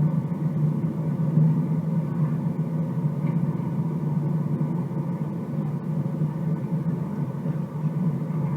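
Steady low cabin drone inside a Boeing 737 MAX 8 waiting on the ground, with a strong low hum.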